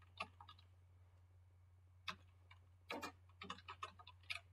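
Faint keystrokes on a computer keyboard: a couple of scattered clicks, then a quicker run of taps in the second half, over a steady low hum.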